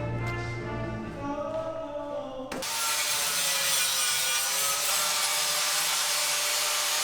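Background music, cut off abruptly about two and a half seconds in by a steady, rasping noise of a tool at work.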